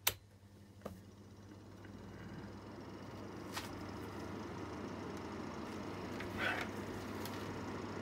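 Two knob clicks on an Easy Home fan heater, then its fan motor spins up, the steady whirr of the fan and moving air growing gradually louder over the first few seconds and then holding, with a low mains hum and a few faint ticks.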